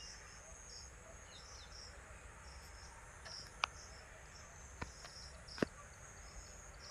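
Faint, fairly even ticking of a car's indicator flasher, the hazard-light tick-tock heard in the cabin. Three sharp clicks come in the middle.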